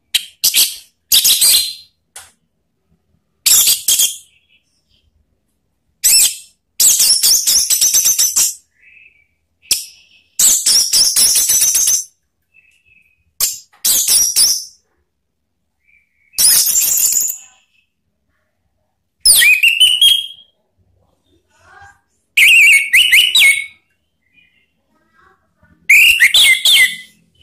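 Orange-headed thrush (anis merah) singing: about a dozen short, loud, high, varied phrases separated by pauses, the last few phrases dropping into lower notes.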